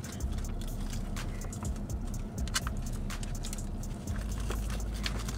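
Steady low hum inside a car, with scattered light clicks and rustles of paper fast-food packaging being handled.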